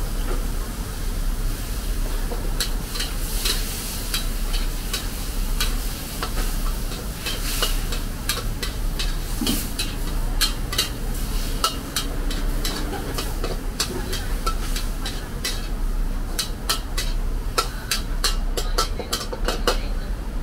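Stir-frying in a wok: a metal spatula scrapes and clinks against the pan in quick, irregular strokes while the food sizzles, over a steady low rumble.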